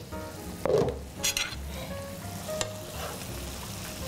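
Pieces of lamb braised in their own juice with onions sizzling in a frying pan, a steady hiss, with a brief clatter about a second in.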